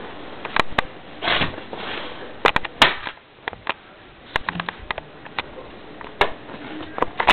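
Handling noise from a sword and camera being moved about: irregular sharp clicks and knocks, with brief rustles a little over a second in and around two seconds in.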